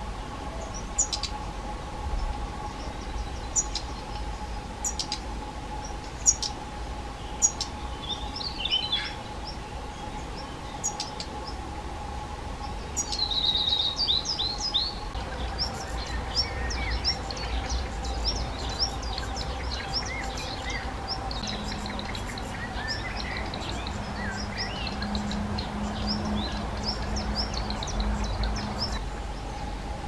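Young black redstarts calling: scattered sharp, very high ticks, then from a little before halfway a rapid, continuous run of begging chirps.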